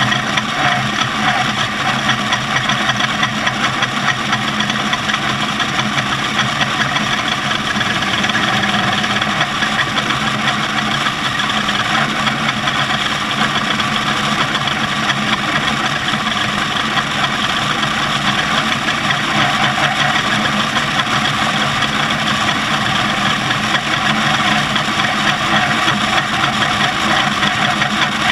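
Off-road race vehicle's engine running steadily, with a dense even noise over it and no change in pitch or loudness.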